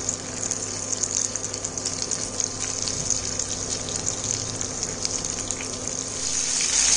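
Paneer and boiled potato cubes sizzling and crackling in hot oil in a frying pan, getting louder toward the end as more pieces go in.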